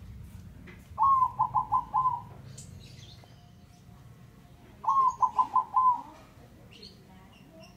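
Male zebra dove (perkutut) cooing: two phrases of quick staccato coos, each lasting about a second, a few seconds apart.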